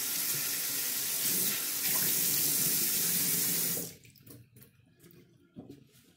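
Bathroom sink faucet running steadily, with water splashing, then shut off suddenly about four seconds in, leaving a few faint clicks and drips.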